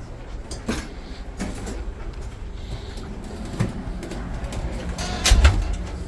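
Rail passenger car rumbling along the track, heard from inside, with scattered clicks and knocks; the loudest is a thump about five seconds in.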